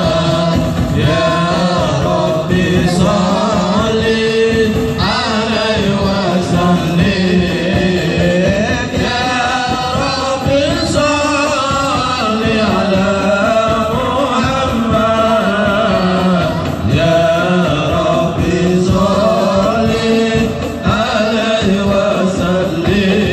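A live marawis group: men's voices chanting an Islamic devotional song together over frame drums, amplified through Yamaha DBR15 powered speakers.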